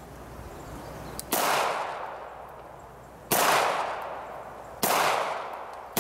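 Handgun firing slow single shots, about one every one and a half to two seconds: three shots, and a fourth right at the end, each sharp crack followed by a trailing echo that fades over about a second.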